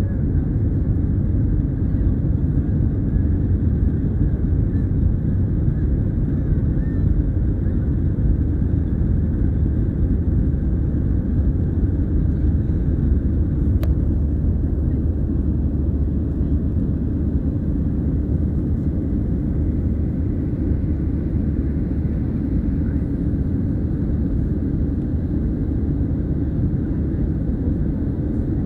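Steady low rumble of an airliner in flight, heard inside the cabin at a window seat over the wing: engine and airflow noise.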